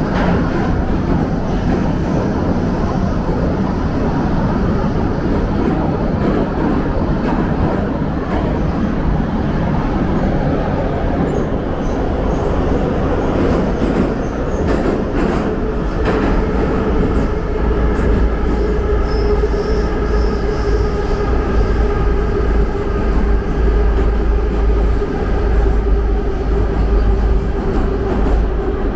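Metro train running at speed, heard from inside the passenger car: a loud, steady rumble of wheels and running gear. About halfway through, a steady high whine joins and holds.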